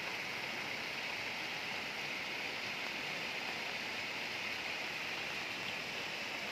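Steady, even hiss of rain and running water, with no distinct splashes or other events.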